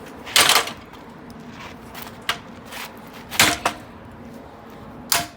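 Heavy blows struck on a steel ATV frame: about five separate metal impacts, the loudest near the start, around three and a half seconds in and near the end, some leaving a brief metallic ring.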